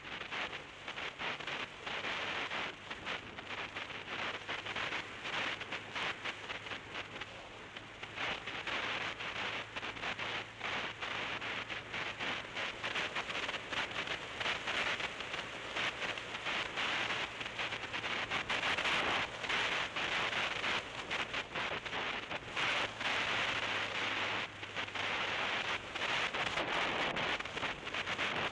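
Wind rushing and buffeting over the camera microphone on a moving motorcycle, a dense flickering hiss, with a faint steady low engine hum underneath.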